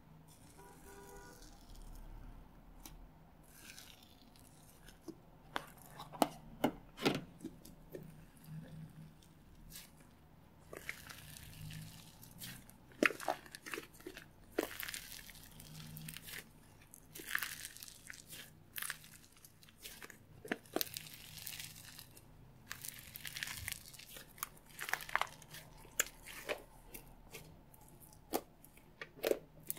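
Thick, old bubbly slime being pulled, stretched and kneaded by hand: irregular crackling pops and tearing as its strands and trapped air pockets break.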